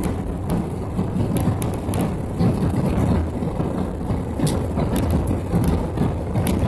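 Steady cabin drone of an Airbus A320-family jet's engines and rushing airflow, heard from inside the cabin during the climb after takeoff. A few sharp clicks sound through it.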